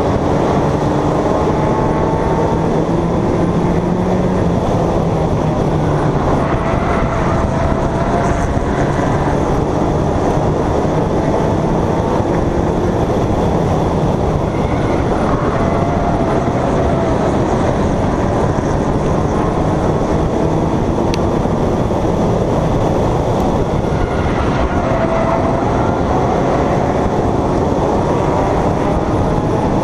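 Race car engine running hard under racing load, picked up by an onboard camera. It drones loudly and steadily, its pitch dipping and climbing again every several seconds as the revs fall and rise through the laps.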